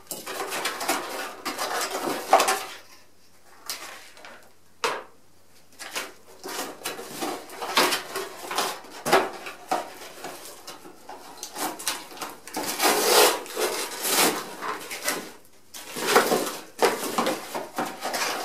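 Rustling and crinkling of cardboard and plastic wrap as packaging is handled and a small cardboard box is opened, with light knocks of parts against the box. It goes quieter for a few seconds early on, then the handling picks up again.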